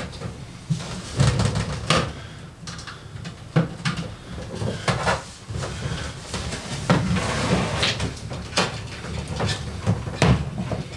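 Irregular knocks, clicks and rustling as cables and equipment are handled behind a TV sideboard.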